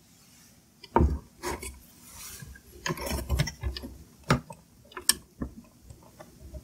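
Irregular clicks and knocks of a small flat-blade screwdriver pressing down on a push-in wire terminal block while the wires are seated, with light rubbing as the wires and metal enclosure are handled.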